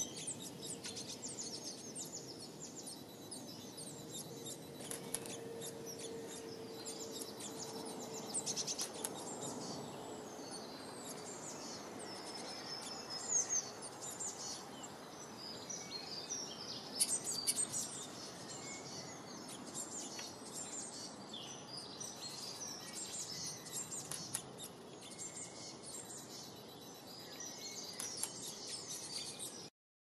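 Small songbirds chirping and twittering over a steady outdoor background hiss.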